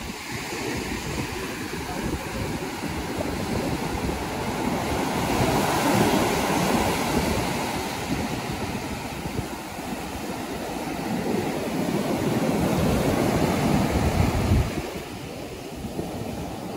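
Surf breaking and washing up a beach, with wind buffeting the microphone. The wash grows louder in two long swells and drops off sharply near the end.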